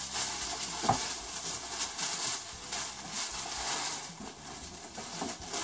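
Tissue paper wrapping rustling and crinkling as pillows are unwrapped from their boxes, with a soft bump about a second in.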